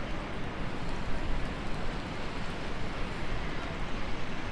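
Heavy rain and gusty wind on a city street: a dense, steady hiss of rain with wind rumbling and buffeting on the microphone.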